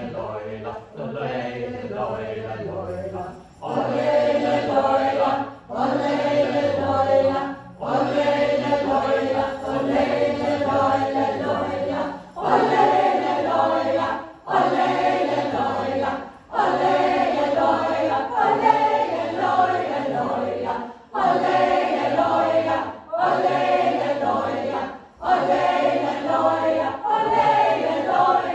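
Community choir singing an arrangement of a traditional Sami yoik, a repetitive chant in phrases of about two seconds with short breaths between them. It gets louder about three and a half seconds in.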